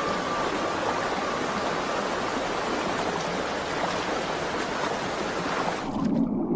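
Rushing water of a shallow salmon stream, a steady hiss. About six seconds in, the high hiss drops away suddenly and a lower, duller sound takes over.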